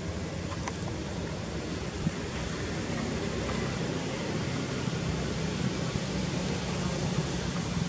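Steady low rumbling wind noise on the microphone outdoors, with a faint tap about two seconds in.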